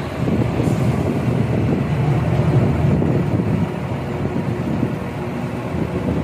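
Steady low rumble of a ship's deck crane working as it swings a suspended wheel loader, with wind buffeting the microphone.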